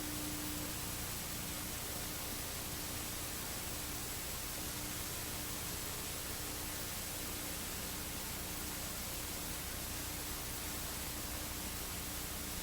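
Steady electronic hiss of static with a faint constant hum underneath, unchanging throughout, then cutting off abruptly at the end. It is recording noise with nothing else in it.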